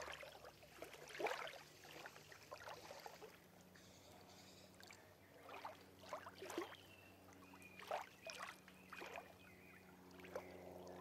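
Floodwater lapping faintly, with small irregular splashes about once a second over a steady low hum.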